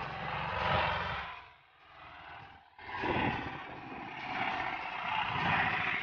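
Motorcycle engine running under load as it pulls a cultivator through dry soil. It fades about a second and a half in and returns abruptly near the middle.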